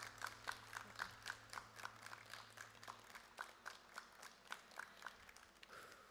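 Thin applause from a small seated audience: separate hand claps, about four a second, gradually weakening and dying away near the end.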